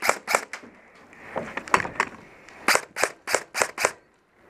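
Airsoft guns firing in short runs of sharp cracks: a quick string right at the start, a few more shots about a second and a half in, and about six more in quick succession a little under three seconds in.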